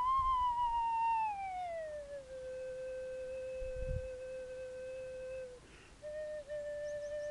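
Music: a slow melody on a single pure, sliding tone. A held note glides smoothly down to a lower note and holds, breaks off briefly about five and a half seconds in, then returns and slides down again.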